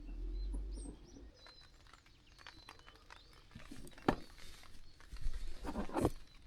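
Birds chirping in short high calls, with a few sharp knocks or clicks from handling nearby, the loudest about four seconds in and again near the end.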